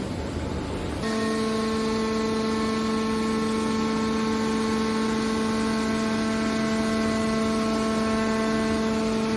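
A broad rushing noise, then about a second in an abrupt switch to a steady machine hum with a pitched whine that holds unchanged.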